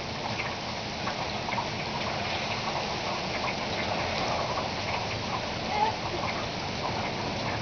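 Heavy rain falling steadily on pavement and trees, a dense patter of drops. A brief, louder short sound stands out about six seconds in.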